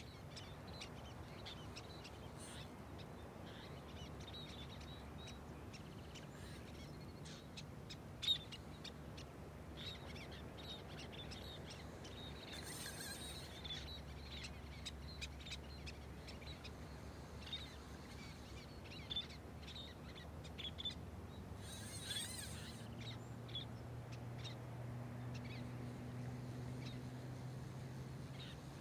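Birds calling in many short high chirps, with two brief louder rasping calls about midway and later on, over a faint steady low hum.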